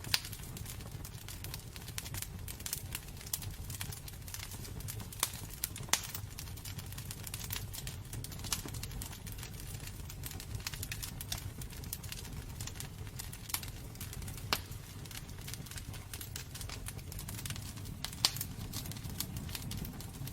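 Wood burning in a fireplace: a steady low rumble of flames with constant crackling and a few sharp pops of burning wood, the loudest right at the start, around six seconds in and near the end.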